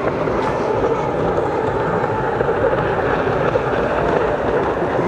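Racing stand-up jet skis running at speed, a steady engine drone.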